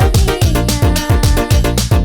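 Loud Palembang-style DJ remix dance music: a deep, pitch-dropping kick drum hitting about four times a second under a sliding synth lead melody.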